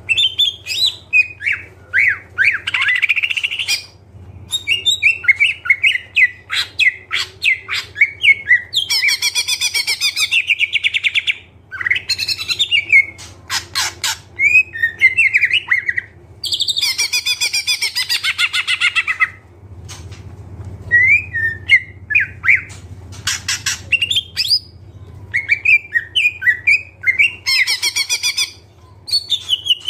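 Green leafbird (cucak ijo) singing hard and without pause: a fast stream of varied chirps, whistles, trills and sharp clicks, broken by longer harsh, buzzy phrases, packed with calls mimicked from other birds.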